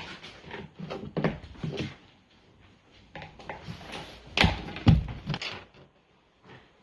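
Play-Doh toys and tools being handled: scattered clicks and rustles, then two loud knocks about four and a half and five seconds in.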